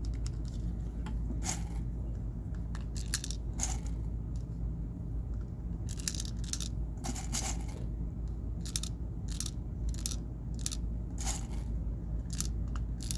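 Irregular small clicks of 6mm airsoft BBs being pressed one at a time by finger into a spring airsoft pistol's magazine, over a steady low hum.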